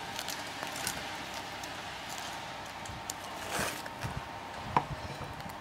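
A knife cutting a baguette on a wooden cutting board: a few scattered knocks and short scraping sounds, the sharpest knock near the end.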